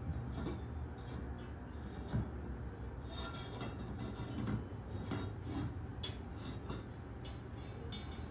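Glass and metal lab apparatus being handled and fitted together on a stand: scraping and rubbing with light clinks and a sharp knock about two seconds in, over a steady low hum.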